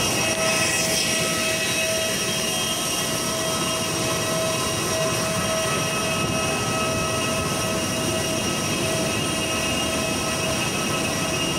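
Steady whine and rushing noise of a jet airliner standing on the apron. Several constant high tones sit over an even roar that holds level throughout.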